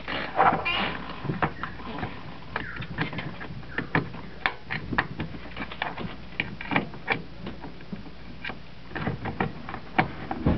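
Small hand screwdriver working screws into a plastic power-tool battery pack case, with irregular light clicks and scrapes from the tool and the casing being handled.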